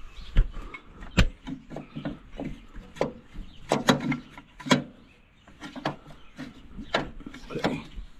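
Irregular metal clanks and knocks as brake parts are worked loose by hand inside the brake housing of an Allis-Chalmers D17 tractor, with a short quieter pause around the middle.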